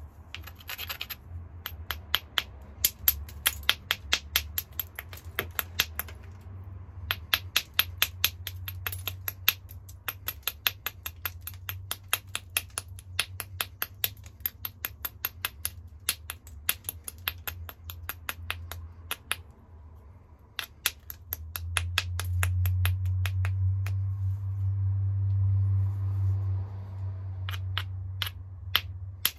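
Rapid light clicks of a small hammerstone worked along the edge of a hornstone biface, about five a second in runs with short pauses. A low hum swells for a few seconds in the second half.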